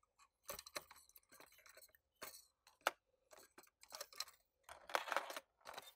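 Small plastic parts of a quartz clock movement being handled and pried apart by hand: light, irregular clicks and taps, with a short scraping rustle about five seconds in.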